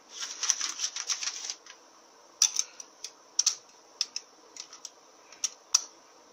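Steel and friction clutch plates of a Mazda FN4A-EL automatic transmission clutch pack clinking against each other and the drum as they are turned by hand to line up their tangs. A close metallic rattle lasts through the first second and a half, then single sharp clicks follow every half second or so.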